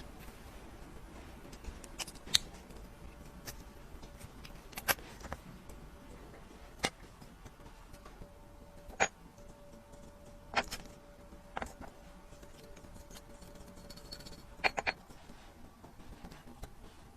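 Small metal watchmaker's tools clicking and tapping against watch parts, a dozen or so sharp clicks at irregular intervals over a low hiss, with a faint steady hum for a few seconds in the middle.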